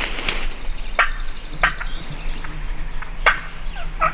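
Wild turkey clucking: four short, sharp notes about a second apart.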